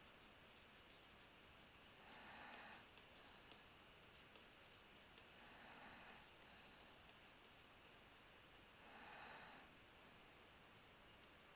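Faint breathing close to a headset microphone, three breaths evenly spaced about three and a half seconds apart, with a few faint clicks.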